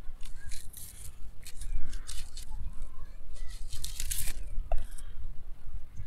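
A small pocket knife scraping and stripping dry wheat straws: a run of short, irregular, crisp scratching and tearing strokes, with the straws rustling.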